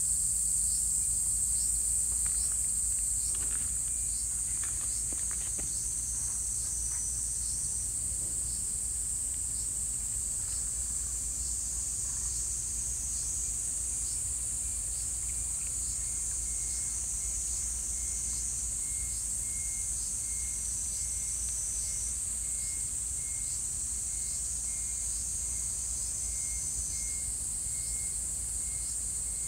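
Steady, high-pitched insect chorus with regular ticking, joined about halfway through by a second insect's rapid pulsed chirping. A few faint rustles a few seconds in.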